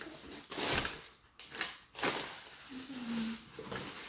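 Plastic bags and newspaper wrapping rustling in a series of short bursts as items are pulled out of a cardboard box.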